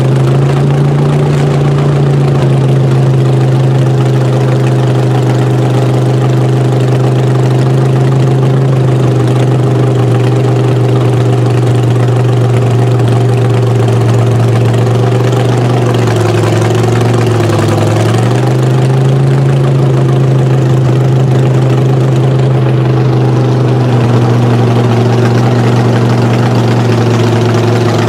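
Mega truck engine running steadily at low speed, its note dipping briefly and coming back up about two-thirds of the way through.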